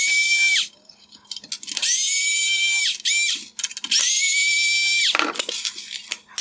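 Power driver with a T20 Torx bit backing out three screws from a headlight bezel: three high-pitched whirs of about a second each, rising briefly then holding steady, with light clicks of the screws and parts in between.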